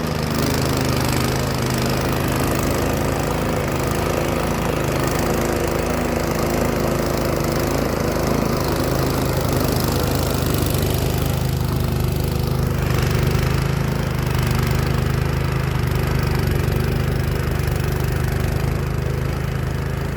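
Gas-powered snow thrower engine running steadily under load, clearing heavy wet snow.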